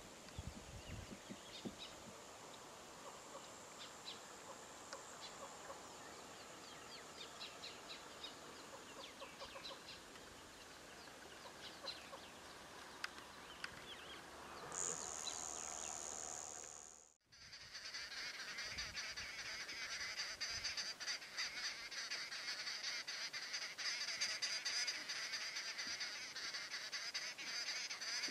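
Outdoor bush ambience of birds calling in a high-pitched chorus. The sound cuts out for an instant about halfway through, then returns denser and louder.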